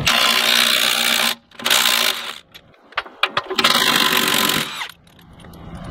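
Cordless impact wrench (Milwaukee M12 Fuel) hammering on the bolts that hold a Rhino Box fifth-wheel pin box, in several bursts: a long run of about a second and a half, a shorter one, a couple of brief blips, then another run of over a second, with short pauses between. This is the pin box bolts being broken loose for removal.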